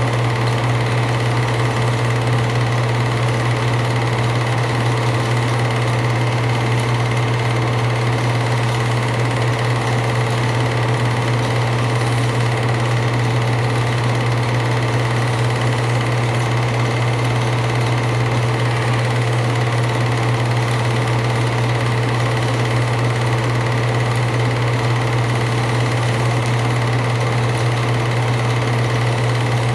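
8mm film projector running: a steady mechanical whir over a strong low hum.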